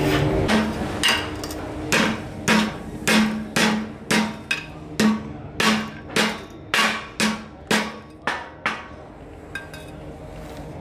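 Hand hammer striking a steel pipe on a steel plate: about fifteen blows at roughly two a second, each ringing briefly with a metallic tone, stopping about nine seconds in.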